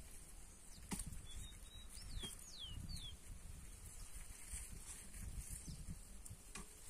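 A few faint, dull knocks of a hoe blade striking soil, the sharpest about a second in. Between about one and three seconds in, a bird gives several short chirps that fall in pitch.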